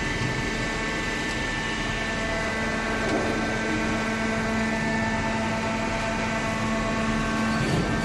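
Hydraulic cardboard baler running, its motor and hydraulic pump giving a steady hum with several held tones over a dense mechanical noise. There is a brief knock near the end.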